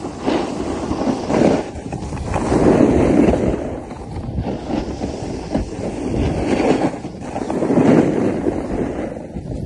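Wind rushing over the microphone of a skier going downhill, mixed with skis scraping on packed snow; the rush swells and eases several times.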